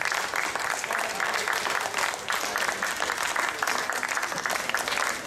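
Spectators applauding: many hands clapping at once, steadily.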